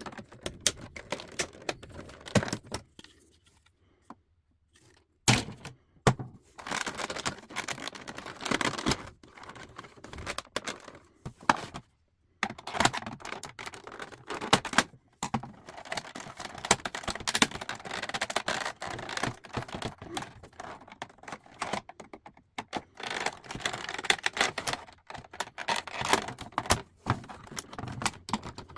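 Metal parts of an old typewriter clicking, clattering and scraping as it is dismantled, with a short quiet pause about three seconds in.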